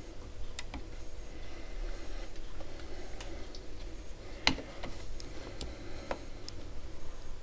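A few scattered small clicks and taps from hands handling parts on an open turntable deck, the loudest about halfway through, over a steady low rumble.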